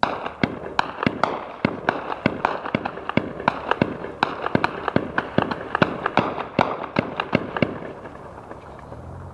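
Heavy gunfire starting abruptly: a rapid, irregular stream of echoing shots, several a second, with bursts overlapping. It thins out near the end.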